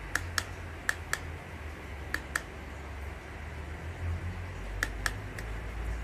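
Push button on an automatic aroma diffuser clicking in quick pairs, four pairs in all, as it is pressed to step through its settings, over a steady low rumble.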